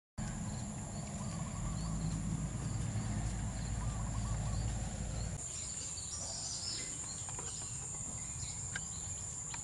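Countryside ambience: insects keeping up a steady high-pitched drone, with scattered bird chirps. A low rumble sits under it for the first five seconds and stops abruptly.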